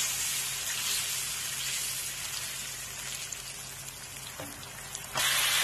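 Tamarind-ginger gravy bubbling and spattering in a nonstick pan as it boils down to thicken. About five seconds in the sizzle suddenly gets louder and brighter.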